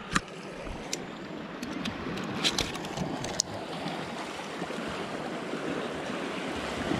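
Sea waves washing against the rocks: a steady wash of surf. A few short sharp clicks and knocks come in the first few seconds.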